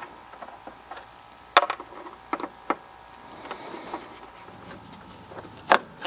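A few sharp clicks and knocks from hand tools and parts on a zero-turn mower as a cover and a stuck throttle lever are worked loose. The loudest click comes about one and a half seconds in, a couple of smaller ones follow, there is a soft scrape in the middle, and another sharp click comes near the end.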